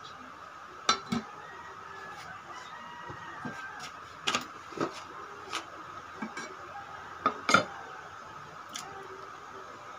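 Aluminium pot lid and kitchen utensils clanking against a cooking pot: a series of sharp metal clanks, the loudest about seven and a half seconds in, over a steady faint hum.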